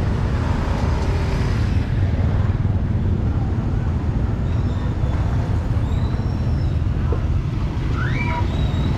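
Steady low rumble of street traffic with motorbikes and cars, with faint voices in the background.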